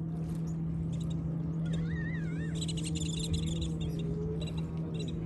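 Steady hum of a boat engine out on the lake. Birds call over it: a warbling whistle about two seconds in, then a run of rapid high chirps.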